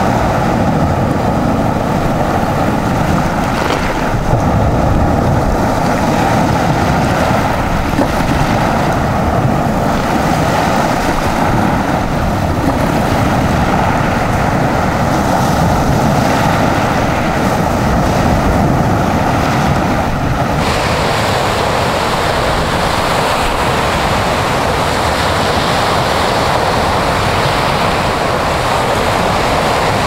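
Azov Sea surf: small waves breaking and washing up a beach of shells in a steady, continuous wash, with wind on the microphone. The sound brightens about two-thirds of the way through.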